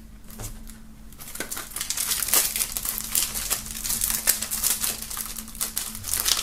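Plastic shrink-wrap being peeled and torn off a CD jewel case: dense crinkling and crackling that gets much louder about a second and a half in.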